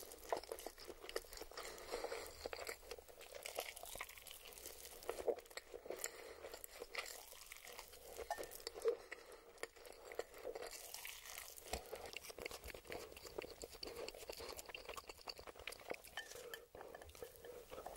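Close-miked slurping and chewing of spicy instant noodles, an irregular run of small wet smacks and clicks from the mouth.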